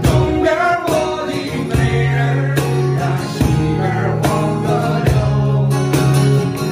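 Background music: a song with a sung vocal line over a steady, sustained bass.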